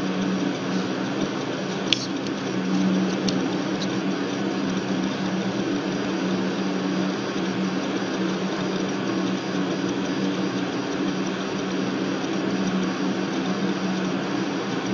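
Steady low hum with a hiss over it, with one sharp click about two seconds in and a couple of faint ticks after it.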